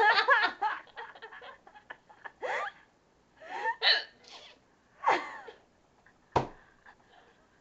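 A woman hiccupping repeatedly: short, sudden hiccups about one to one and a half seconds apart, about five in all, the sharpest one near the end.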